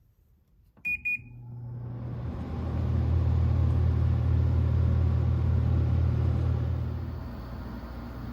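Samsung 10,200 BTU fixed-speed window air conditioner switched on. Its control panel gives two short beeps, then the fan and line-frequency compressor start with a low hum and a rush of air that builds over about two seconds, runs steadily, and eases slightly near the end.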